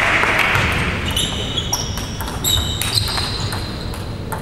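Table tennis ball being struck back and forth in a rally: a series of sharp, ringing clicks off the bats and table, about one every half second, starting about a second in. Applause fades out during the first second.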